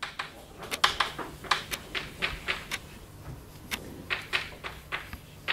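Irregular sharp clicks and taps, a few a second, with a faint steady low hum joining about halfway through.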